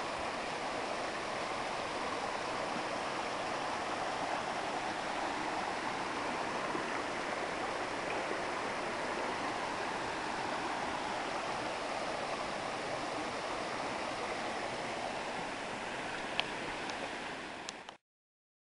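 Steady rush of running water, like a mountain stream, unbroken until it cuts off abruptly near the end.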